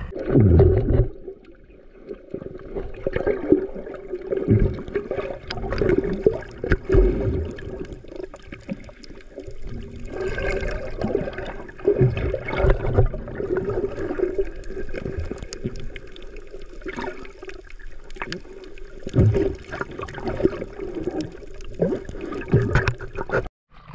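Sea water gurgling and sloshing in irregular surges and splashes, over a steady low hum.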